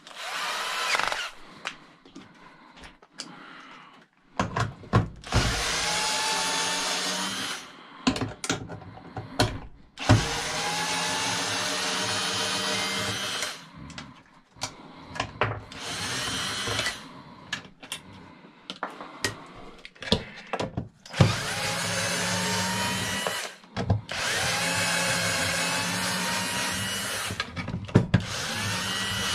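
Power drill driving a socket on an extension, backing out the small bolts that hold a garage door opener's motor. It runs in about six bursts of one to four seconds; its whine rises as it spins up and falls as it stops. Short knocks and clicks of handling come between the runs.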